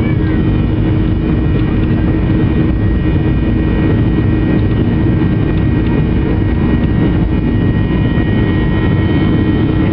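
Boeing 737-800's CFM56 jet engines at take-off thrust, heard inside the cabin as the airliner accelerates down the runway: a steady, powerful roaring with a deep rumble and a thin steady whine over it.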